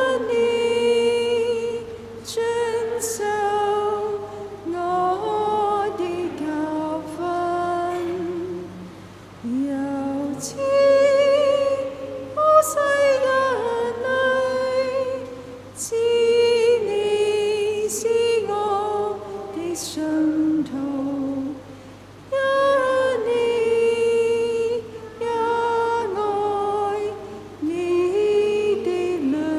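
Refrain of a Chinese hymn sung in slow, held notes, in phrases a few seconds long with short breaths between them.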